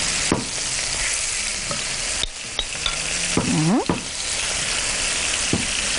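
Marinated chicken cubes sizzling steadily as they fry in hot oil in a pan. They are stirred with a wooden spatula, which scrapes against the pan a couple of times.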